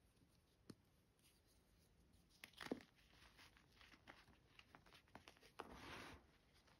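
Reformed gym chalk blocks crushed between the fingers. There is a sharp crunch about two and a half seconds in, a longer crumbling crunch near six seconds, and small ticks of falling chalk in between.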